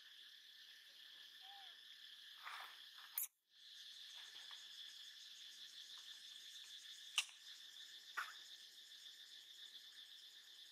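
Steady, faint chorus of forest insects chirring, with a few sharp clicks over it. The sound cuts out for a moment about three seconds in.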